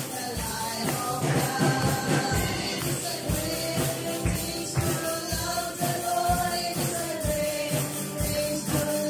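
A group of women singing a song together over backing music, clapping their hands in time to a steady beat.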